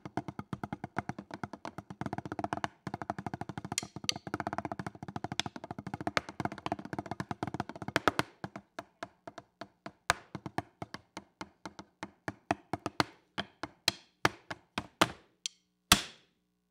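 Drumsticks playing a solo drumline-style beat on drums: fast, dense strokes and rolls at first. About halfway through it turns to separate, spaced hits, and it ends on a single loud accent shortly before the end.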